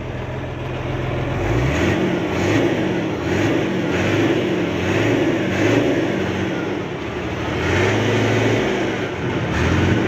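Hino J08C six-cylinder diesel engine heard at its exhaust tailpipe, revved up and down repeatedly. These are test revs after the air compressor and injection pump have been refitted and timed.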